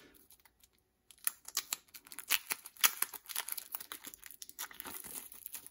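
Clear plastic shrink wrap being picked at and peeled off a boxed card deck: irregular crinkling and crackling that starts about a second in.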